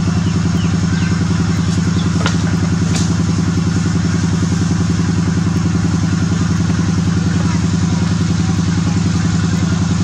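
A small engine running steadily at idle: a loud, even low hum with a fast pulse. A few faint short high chirps sound over it.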